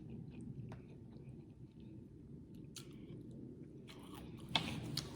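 A person chewing food close to the microphone, with small wet clicks and crunches, and a louder crunchy sound about four and a half seconds in.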